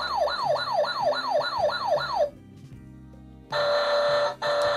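Toy ladder fire truck's electronic sound unit playing a fast yelping siren, about seven quick falling sweeps in two seconds. After a short pause it sounds two steady horn blasts.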